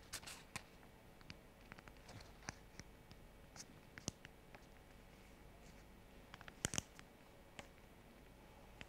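Faint crinkling and tapping of origami paper being folded and creased by hand on a cutting mat: a scatter of brief clicks, the sharpest pair about two-thirds of the way through.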